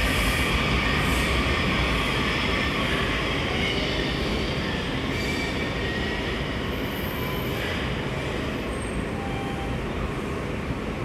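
Washington Metro subway train running through an underground station, a steady rumble and hiss with brief high-pitched wheel squeals, growing gradually quieter.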